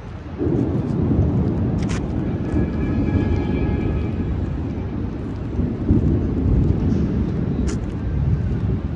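Storm wind buffeting the microphone: a heavy, low rumble that jumps up sharply about half a second in and stays loud, with a few faint clicks over it.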